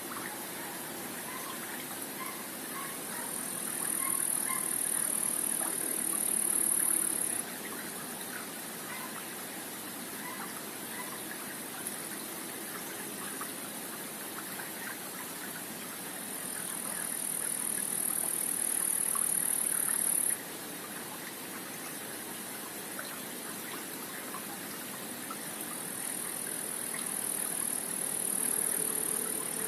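Stream water running steadily below a pond dam, with small splashing ticks. A high-pitched buzz swells for a few seconds and stops suddenly, three times.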